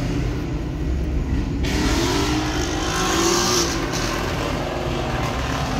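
A car engine heard from inside another car, with a steady low rumble. About one and a half seconds in a rushing noise jumps up, and over the next two seconds the engine's pitch rises as it accelerates, then eases off.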